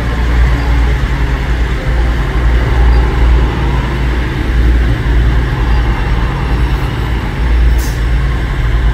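East Midlands Railway Class 222 Meridian diesel multiple unit moving slowly along the platform, its underfloor diesel engines running with a loud, deep, steady hum.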